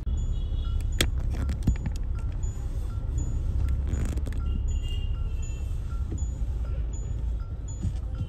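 Mahindra Scorpio N creeping through city traffic, heard from inside the cabin: a steady low engine and road rumble, with a regular electronic tick about one and a half times a second. There are a couple of sharp clicks early on and a brief higher tone around the middle.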